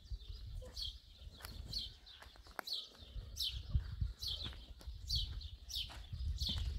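A small bird chirping over and over, short downward-sliding chirps roughly once or twice a second, over a low rumble and light footsteps on a dirt road.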